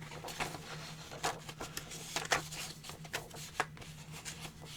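Record packaging being handled: light rustling of paper and cardboard with scattered soft taps.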